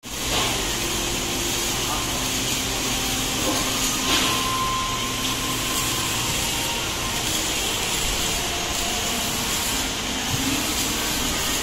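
Steady mechanical running noise: an even hum and hiss that holds without change.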